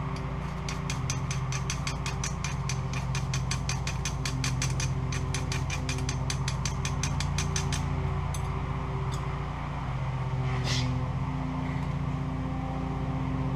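A steady low motor drone runs throughout. Over it comes a rapid, even run of sharp clicks, about six a second, for some seven seconds. About eleven seconds in there is one short hiss as flame is lit in the rocket stove.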